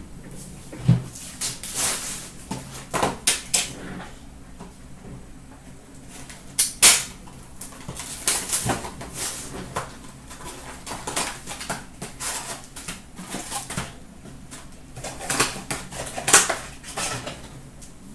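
Hands opening a cardboard box of hockey card packs and pulling the packs out: irregular crinkles, scrapes and sharp clicks, the loudest about seven seconds in.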